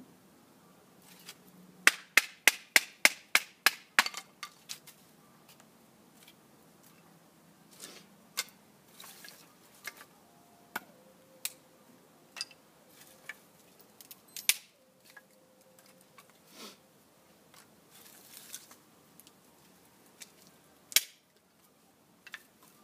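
Knife working kindling on a wooden stump: a quick run of about eight sharp wooden knocks, about four a second, a couple of seconds in. Then scattered clicks and clatter of sticks being handled, with one louder knock near the end.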